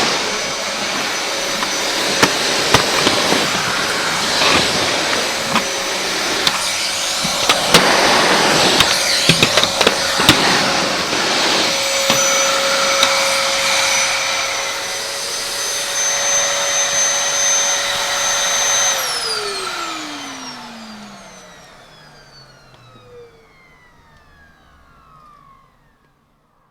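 Household vacuum cleaner running with a steady whine, with scattered sharp clicks and knocks along the way. About two-thirds of the way through it is switched off and the motor winds down, its whine falling in pitch and fading out.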